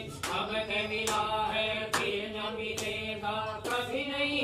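Voices chanting a Hindu devotional mantra in a steady sung melody during a havan, with sharp hand claps keeping time about once a second.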